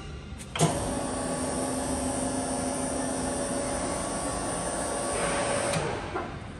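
Surface grinder's wheelhead power rapid up/down motor running with a steady whine over a hiss, starting abruptly just after the start and cutting off abruptly about five seconds later.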